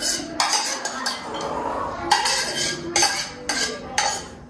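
A spoon scraping and clinking against ceramic bowls as egg mixture is scraped from a small bowl into a large mixing bowl of creamed margarine, in a run of irregular strokes.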